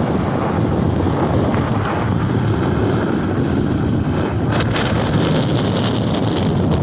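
Wind buffeting the microphone while riding an electric mini bike at speed, a steady low rumble. About two thirds of the way in, a higher hiss joins it for about two seconds, then stops.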